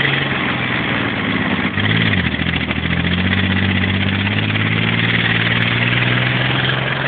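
Armoured vehicle's engine running hard on the move, with a dense rushing and clattering noise over it; about two seconds in the engine note dips and comes back, as during a gear change, then holds steady.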